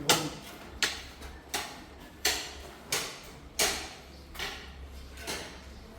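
Footsteps on a hard, bare floor: about eight evenly spaced steps at walking pace, each a sharp knock with a short echo.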